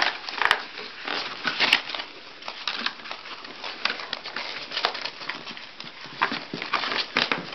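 Crinkling and rustling of a toy's cardboard and plastic packaging being handled and pulled at, with many small irregular clicks and taps.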